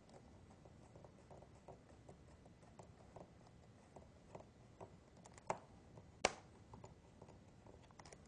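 Faint small clicks and ticks of a number 0 Phillips screwdriver tightening the keyboard retaining screws of a Dell Vostro 1310 laptop, with two sharper clicks a little past halfway.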